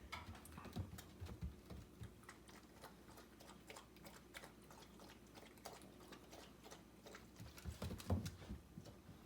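Border collie puppy moving about in its new bed, its paws making faint, irregular clicks and light scuffs, with a brief louder cluster of bumps about eight seconds in.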